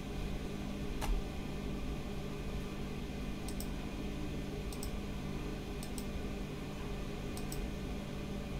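A few soft double clicks of a computer mouse, spaced a second or so apart, over a steady low hum.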